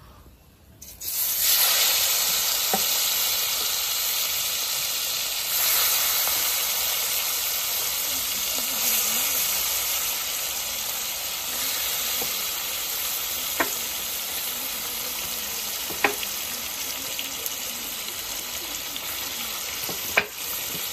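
Marinated chicken going into hot oil in a kadai: a sudden loud sizzle about a second in, then steady frying. A few sharp clinks are heard now and then.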